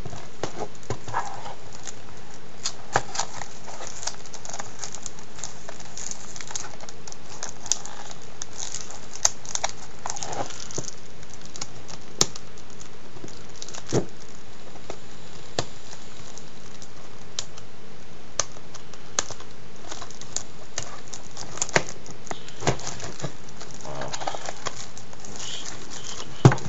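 Plastic shrink wrap being torn and peeled off a DVD case: scattered crinkles and irregular clicks over a steady hiss.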